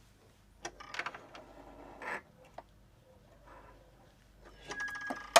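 Intermittent handling noises at a sewing machine: short rustles of fabric and a few clicks, the loudest a sharp click near the end.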